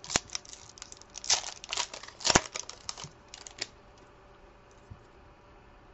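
A trading-card pack wrapper being torn open and crinkled by hand, a run of short crackles and rips that is loudest about two seconds in and stops a little past the middle.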